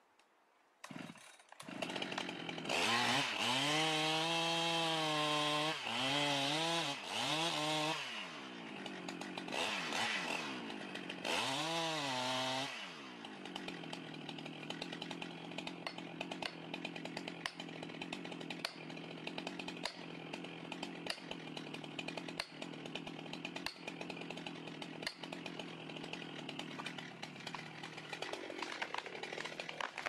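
Chainsaw starting about a second in and revving up and down as it cuts into a pine trunk, then left idling. Over the idle, sharp blows from an axe at the base of the trunk come about once a second.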